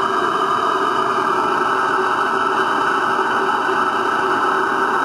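Stuart half beam model steam engine running steadily on steam, a continuous even noise with no distinct beats.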